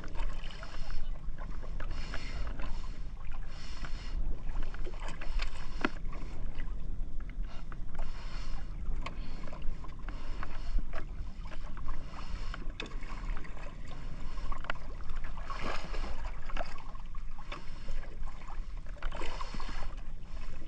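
Sea water sloshing and splashing against a small outrigger boat's hull and outrigger float in a choppy swell, in hissy surges every few seconds over a steady low rumble. Occasional small clicks and knocks come from the boat and the handline.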